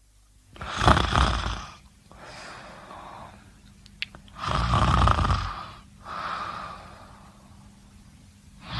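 Someone snoring: two loud snores about three and a half seconds apart, each followed by a quieter, longer breath. A short click comes about four seconds in.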